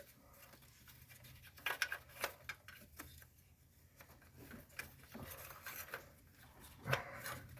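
Scattered light clicks, taps and scrapes of hand tools and engine parts being handled during engine teardown, over a faint steady low hum.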